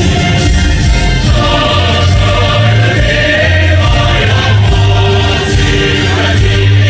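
Choir singing with instrumental accompaniment, loud and continuous with a heavy bass.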